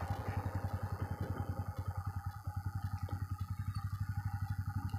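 Bajaj Pulsar NS125's single-cylinder engine idling, with an even, quick beat.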